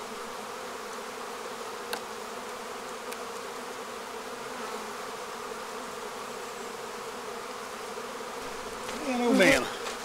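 Honeybees buzzing steadily around an open hive, a continuous even hum. A light click sounds about two seconds in, and a brief voice-like sound comes near the end.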